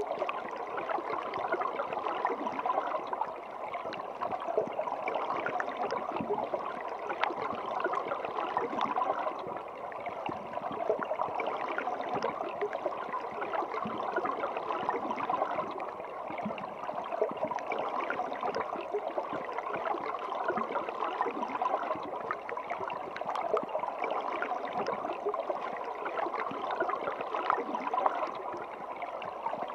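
Water flowing and gurgling steadily, full of small bubbling pops and splashes.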